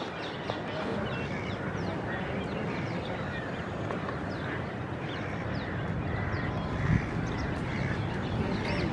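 Many birds chirping and calling at once, a dense chorus of short calls over a steady low rumble, with one short thump about seven seconds in.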